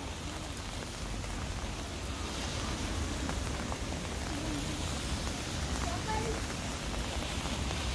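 Steady rain falling, a continuous hiss of rain on surfaces, with faint voices in the background.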